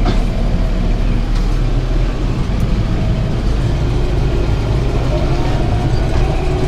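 Tractor engine running steadily while pulling a round baler that is picking up and baling hay.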